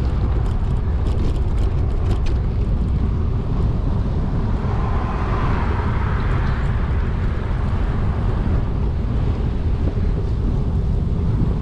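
Wind buffeting the microphone of a bicycle being ridden at speed, a steady low rumble. A few sharp clicks in the first couple of seconds.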